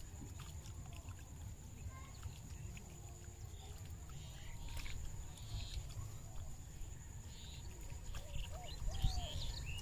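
Outdoor ambience of a low rumble with scattered small clicks and rustles as a net is handled at the water's edge. From about eight and a half seconds in, a run of short, repeated animal calls begins, about three a second.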